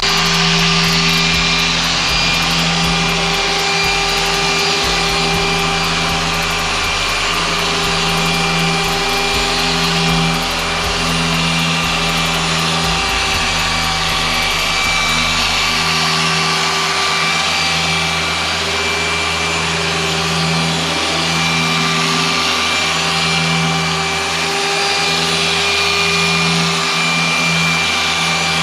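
An electric motor-driven tool running continuously at high speed: a steady whine over a rushing noise, holding an even level without let-up.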